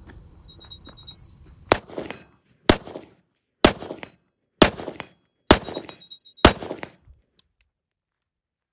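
Six AR-15 rifle shots fired in a steady string about one a second, each followed by a short echo. The rifle is a Cobalt Kinetics AR-15 with a 12-inch barrel.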